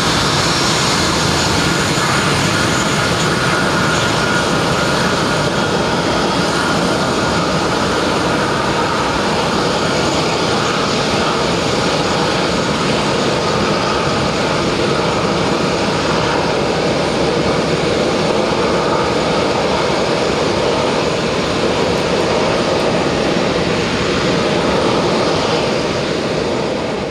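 Twin jet engines of an Airbus A319 at taxi power: a steady jet roar with a high whine running through it.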